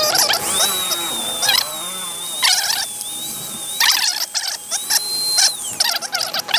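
Small electric grinder buffing rust spots off metal parts: a high motor whine that sags under load, with repeated short bursts of grinding each time it touches the metal.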